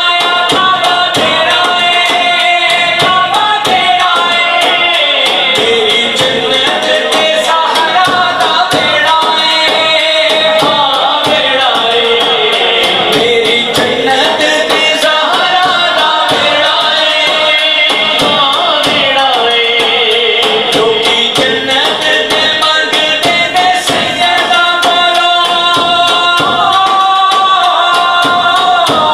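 Male voice singing a devotional Islamic kalam (naat) into a microphone, with long held and sliding notes, over a frame drum (daf) beaten in a fast, steady rhythm.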